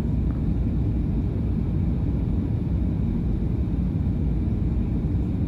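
Steady low rumble of a jet airliner in flight, engine and airflow noise heard inside the passenger cabin.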